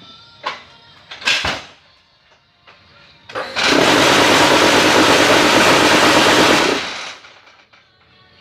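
Hydraulic paving-block press running a loud, steady noisy cycle of about three seconds that starts abruptly and dies away, after a few sharp knocks.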